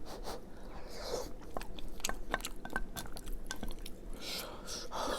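A person chewing a mouthful of vegan hash brown casserole, with many small wet mouth clicks and light crunching.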